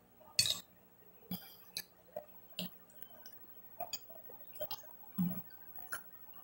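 Close-up eating sounds: chewing and lip smacks on boiled chicken, with light clinks of a metal spoon on a glass plate. They come as a series of sharp clicks and smacks, roughly one a second.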